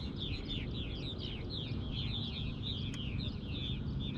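Birds chirping steadily, a quick run of short falling chirps, several a second, over a low steady hum.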